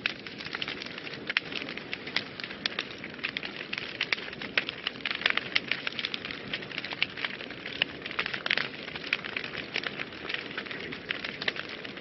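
Wood fire burning in a fireplace, a steady hiss with many sharp, irregular crackles and pops.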